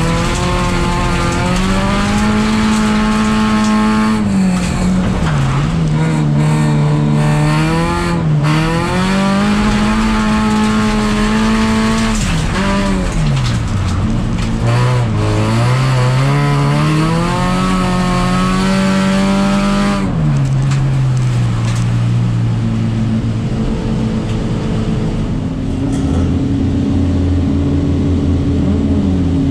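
Race car engine heard from inside the cabin, revving up and dropping back again and again through gear changes as it is driven hard. About 20 seconds in it falls to a lower, steadier note, and near the end it settles into a steady idle.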